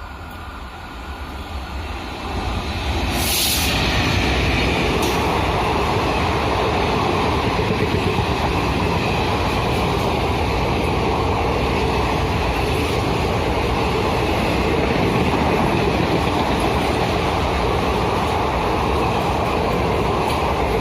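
Express train passing at speed behind a WDG-4D diesel locomotive: the noise swells over the first few seconds as it arrives, with a short hiss about three seconds in, then a steady loud rumble and rush of the coaches rolling by.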